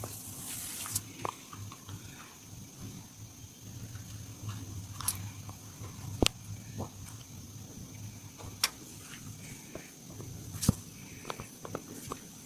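Hands rubbing and kneading skin in a massage, with a few sharp clicks scattered through, over a steady low hum.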